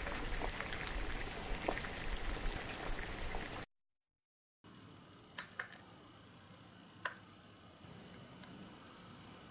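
A crackling, bubbling boiling sound for about three and a half seconds, laid over miniature plastic play food since nothing real is cooking; it cuts off suddenly. After a short gap there is quiet room tone with three light clicks as small plastic replica pieces, a woven pot mat and a tiny pan, are set down on the toy counter.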